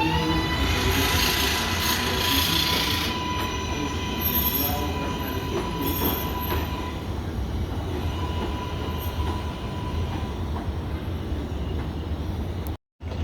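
R188 subway train running on elevated track, with a steady whine and a rush of rail noise, and high wheel squeals from about four to seven seconds in. The sound cuts out completely for a moment near the end.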